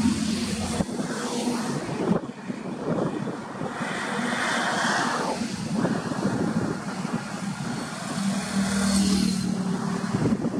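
Highway traffic passing close by: engines and tyre noise of motorcycles and light vehicles, swelling as one goes past mid-way, with wind on the microphone. Near the end the engine drone of an approaching Ashok Leyland bus grows louder.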